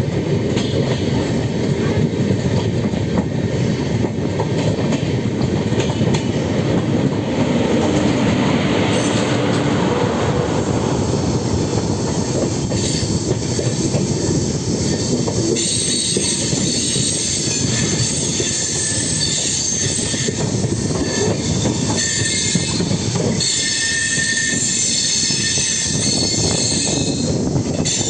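LHB passenger coaches rolling along the track as the train departs: a steady wheel-on-rail rumble, with a high-pitched wheel squeal coming in about halfway through and carrying on.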